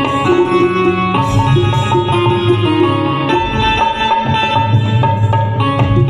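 Live instrumental music: a Roland XPS-10 electronic keyboard plays a sustained melody while a dholak, a two-headed barrel drum, keeps a steady beat under it.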